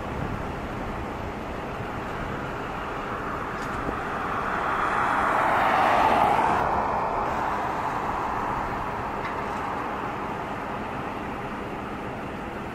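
A vehicle driving past close by: the tyre and engine noise builds up, peaks about halfway through, then fades away, over a steady hum of road noise.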